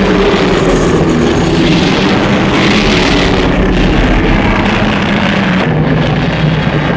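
Loud, continuous made-up monster sound effect for a Godzilla-like kaiju: a dense, harsh rush of noise over a steady low pitched drone, with no breaks or impacts.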